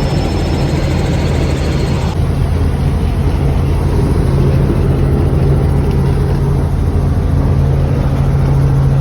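Helicopter in flight, heard from inside the cabin: a loud, steady drone of the engine and rotor with a low hum underneath.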